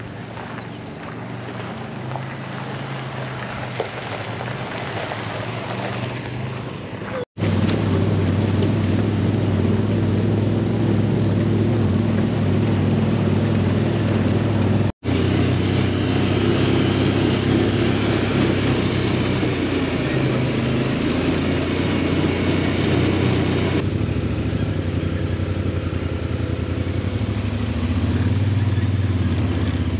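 Side-by-side UTV engine running while driving over a rocky dirt trail, a steady low drone. It grows louder over the first seven seconds, then runs loud and steady, broken twice by brief silent gaps.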